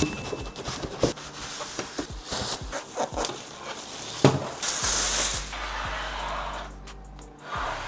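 Packaging being handled: cardboard and plastic rustling in short bursts, with scattered clicks and a sharp knock a little past the middle.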